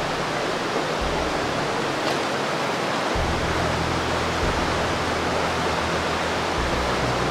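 Steady rushing noise of creek water flowing through the canyon, with low background music notes that shift a few times underneath.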